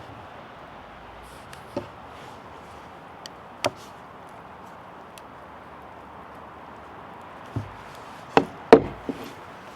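Knife strikes on a wooden cutting board, about six sharp knocks at irregular spacing, with a quick cluster of four near the end, over a steady hiss.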